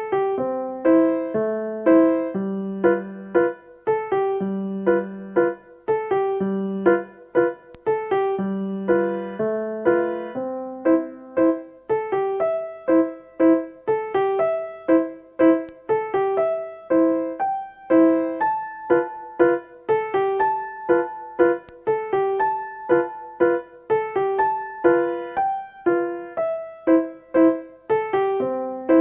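Background music: a lively solo piano tune, played as a steady run of bright, quickly struck notes.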